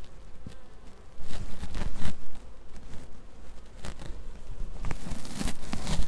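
Honeybees buzzing around the hive, with scattered rustles and clicks of wire mesh and tie wire being handled.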